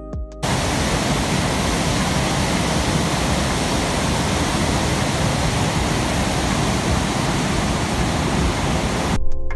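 Steady, loud rush of a large waterfall plunging into a mist-filled gorge. It starts abruptly about half a second in and cuts off just before the end.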